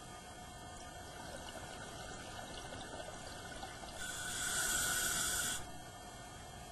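Scuba regulator exhaust: one exhaled burst of rushing bubbles about four seconds in, lasting about a second and a half, over a faint steady hiss heard through the camera's underwater housing.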